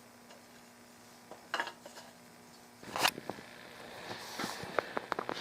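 Metal hand tools clinking and knocking on a workbench, with one sharp knock about three seconds in, then a rising scraping hiss with small clicks near the end as hand-trimming of the wooden gun stock begins.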